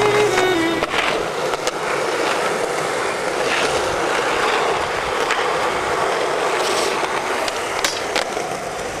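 Skateboard wheels rolling over smooth concrete, a steady rumbling hiss, with a few sharp clicks and knocks from the board scattered through it.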